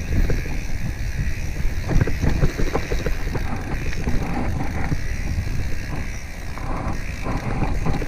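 Wind rushing over the microphone and the rumble of a mountain bike rolling fast down a dry, leaf-covered dirt trail, with frequent knocks and rattles from the bike as it goes over bumps.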